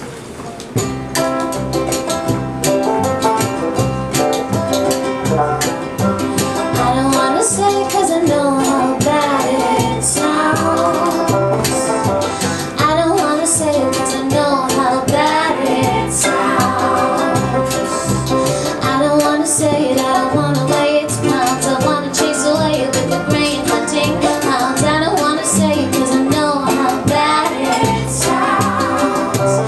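Live acoustic folk-pop band playing: ukulele, banjo or guitar, bass and hand percussion with a steady beat, joined by women's voices singing in harmony.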